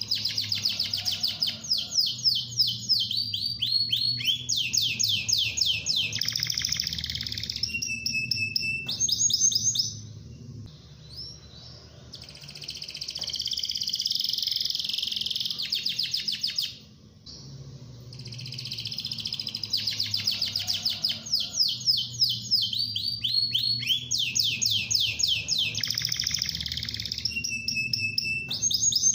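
Domestic canary singing in long phrases of fast trills and rolling runs of repeated notes. The song breaks off briefly about ten seconds in and again a little past the middle before starting up again.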